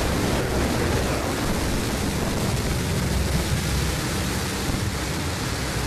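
Blue Origin New Shepard rocket's single BE-3 engine firing at liftoff and during the climb: a loud, steady noise, heaviest in the low end.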